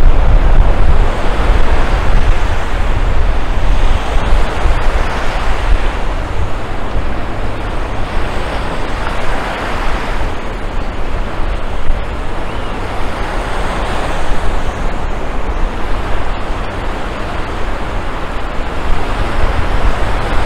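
Ocean surf breaking on a beach, swelling and easing every few seconds, with wind rumbling on the microphone.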